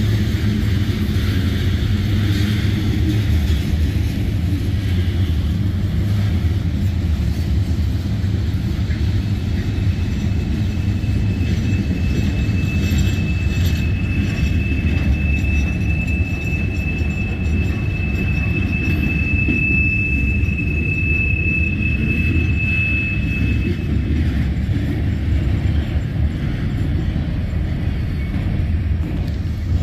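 Mixed freight cars of a CSX manifest train rolling past on the rails with a steady low rumble of wheels on track. A thin, high wheel squeal rises midway through, holds for about twelve seconds, then fades out.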